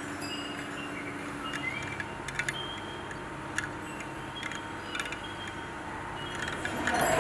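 Small copper pieces of a kinetic sound installation clinking and pinging now and then, each a short metallic tick with a brief ring, over a low steady hum.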